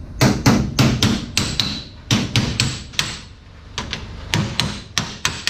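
Hammer blows struck in quick succession, about four a second, in runs of several strikes broken by short pauses.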